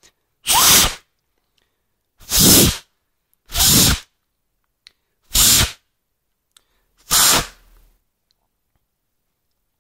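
Five short, hard puffs of breath blown by mouth through the holes of a TarGuard cigarette filter to clear out tar and debris. Each puff lasts about half a second, and they come roughly a second and a half apart, stopping about 8 seconds in.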